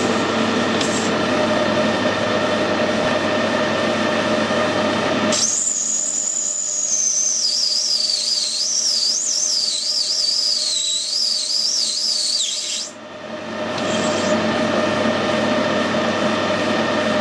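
Metal lathe running as it cuts a diameter down to final size. For about seven seconds in the middle the sound thins out and a high, wavering whine rises over it, then the steady lathe noise returns.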